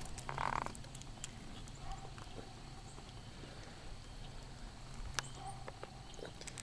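Faint, scattered light clicks and knocks, with a short rustling burst about half a second in.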